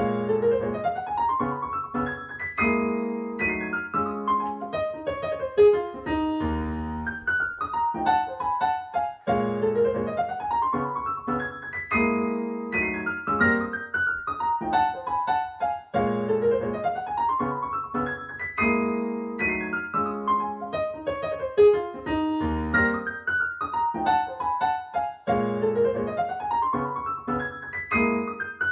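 Piano music played back through Mission 701 bookshelf speakers: a phrase of rising arpeggios over low chords, repeating about every six to seven seconds.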